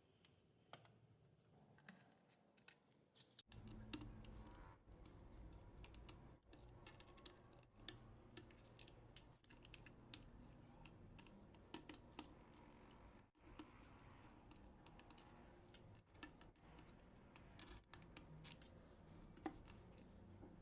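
Faint, scattered small clicks and taps of a screwdriver on the screws under a laptop's rubber feet and against its plastic bottom cover, starting after a few seconds of near silence.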